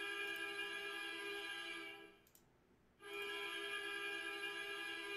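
Steady electronic two-note tone with many overtones, without any change in pitch. It sounds for about three seconds, cuts off for about a second near two seconds in, then sounds again.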